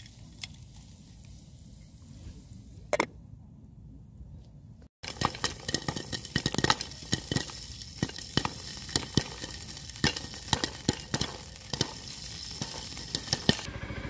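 Corn kernels popping in hot oil in a pot over campfire embers. At first there is faint sizzling with a single sharp pop. After about five seconds the pot, now under a glass lid, gives a dense run of sharp pops over the sizzle.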